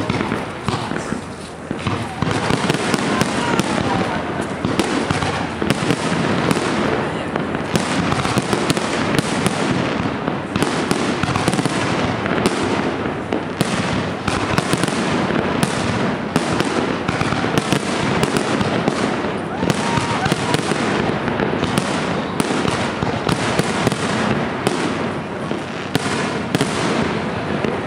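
Fireworks display at close range: a dense, continuous barrage of bangs and crackles, many sharp reports a second, thickening about two seconds in.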